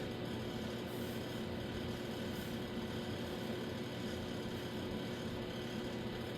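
A steady mechanical hum carrying a few steady tones, unchanging throughout.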